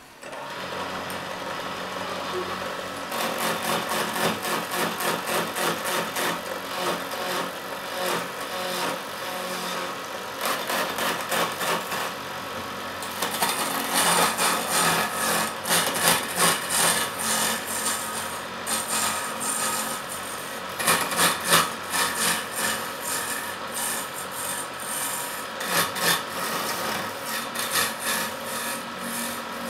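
Hand chisel cutting into a square wooden blank spinning on a wood lathe, rough-turning it round: a rattling scrape that pulses in rapid repeated strokes as the tool bites, with a steady hum from the running lathe beneath.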